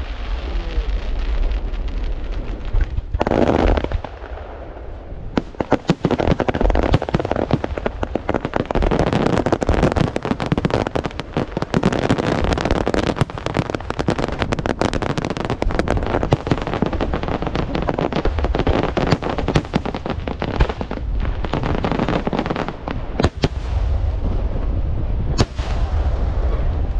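Aerial fireworks display: shells bursting in a rapid barrage of bangs and crackling over a low rumble. It thins out briefly about four seconds in, then builds into a dense, continuous volley to the end.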